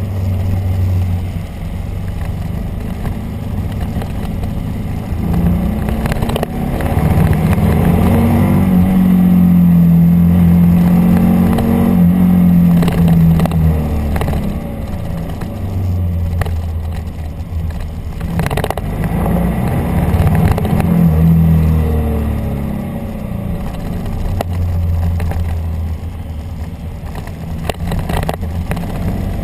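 A police motorcycle's engine heard on board while riding a tight, twisting track. Its pitch rises and falls as the rider accelerates out of corners and eases off into them, strongest for several seconds near the middle.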